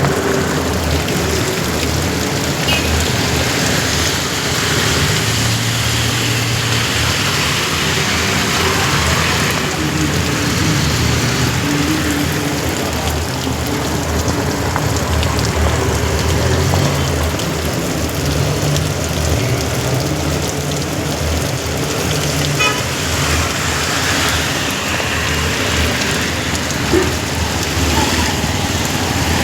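Heavy rain pouring steadily, with road vehicles running through it as a shifting low rumble.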